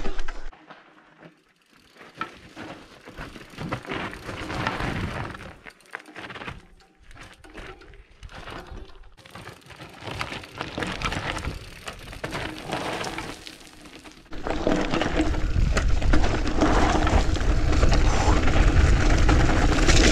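Mountain bike tyres crunching and clattering over loose rock and gravel on a descent, with rattling from the bike. About fourteen seconds in, loud wind buffeting on the microphone sets in over the tyre noise.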